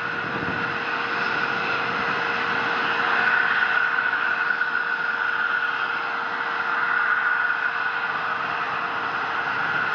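Distant roar of an H-IIB rocket in powered flight, a steady rushing noise with a faint steady hum under it.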